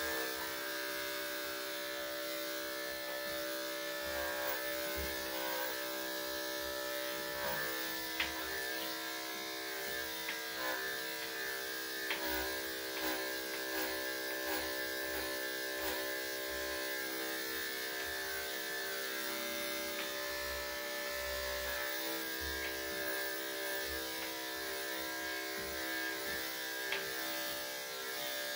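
Corded electric dog grooming clippers running with a steady buzzing hum as the blade shaves a Cocker Spaniel's coat. A few light clicks are heard along the way.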